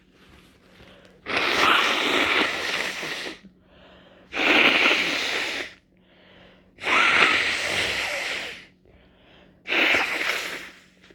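Four loud, wet, snotty sneezes in a row from a person at the tail end of a head cold, one every two to three seconds, each starting suddenly and trailing off over a second or two.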